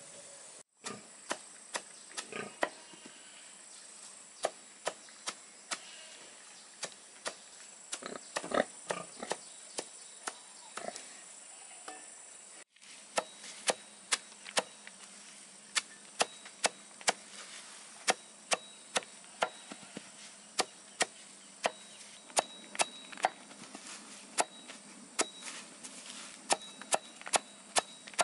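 A series of sharp chopping knocks, about one a second at first and about two a second in the second half, over a steady high hiss.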